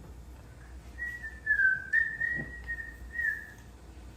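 A person whistling a short wavering tune of high notes, with a soft knock partway through.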